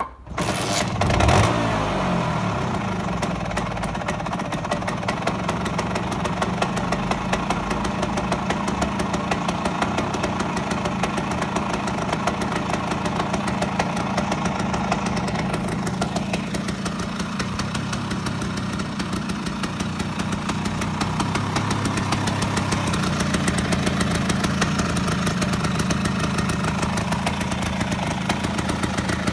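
Stock Vespa PX 125's single-cylinder two-stroke engine starting, with a brief rev about a second in as it catches, then idling steadily through its stock exhaust.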